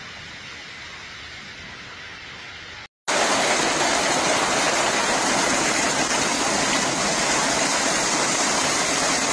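Hail and heavy rain coming down in a storm, a steady hiss: fainter at first, then after a brief break about three seconds in, much louder and denser.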